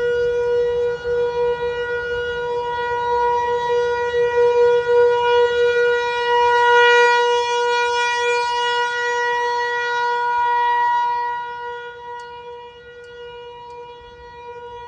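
Outdoor tornado warning siren sounding one steady tone, swelling louder and then fading away after about eleven seconds.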